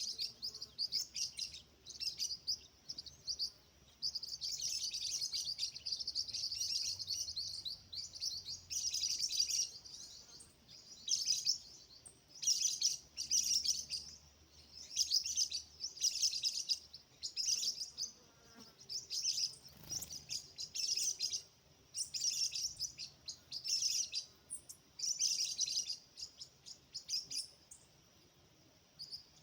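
Rufous-collared sparrow (tico-tico) chirping in quick, high-pitched bursts every second or two, with an unbroken run of chatter a few seconds in.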